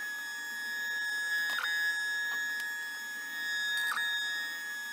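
Shapeoko Pro XXL CNC router's stepper motors whining at a steady pitch as the gantry is jogged across the table, with a brief dip in pitch twice.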